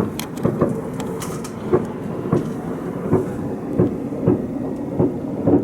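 A continuous run of loud, echoing bangs, about two a second, from an unseen source. They sound like big fireworks or blasts going off, with no flash in sight.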